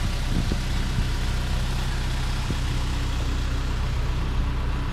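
Cable ferry's engine running with a steady low drone while the ferry crosses the river.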